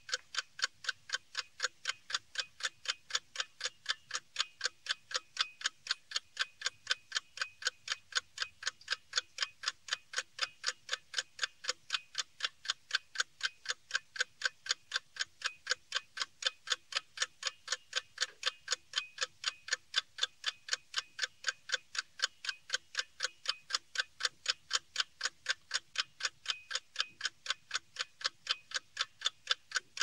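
A clock ticking steadily, an even run of sharp ticks a few times a second.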